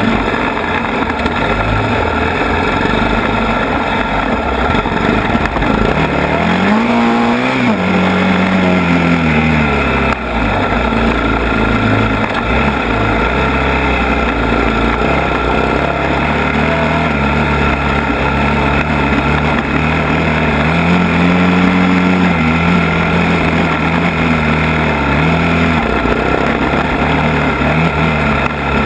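ATV engine running under way, its pitch rising and falling with the throttle: a clear rev-up about a quarter of the way in that falls back over a few seconds, and two smaller rises near the end.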